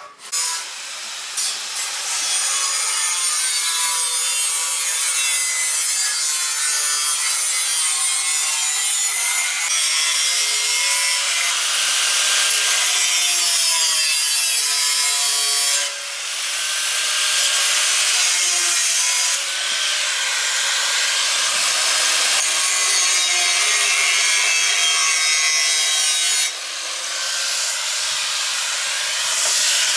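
Power grinder cutting or grinding iron bar: a loud, continuous, hissing grind with a wavering whine under load. It starts abruptly, and the tool eases off briefly twice, about midway and again near the end.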